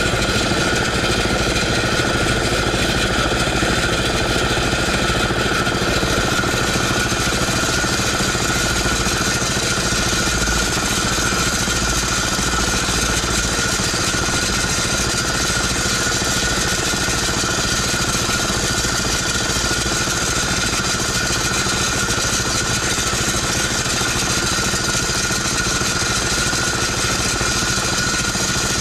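A small boat's engine running steadily and loudly, with a steady high whine over it.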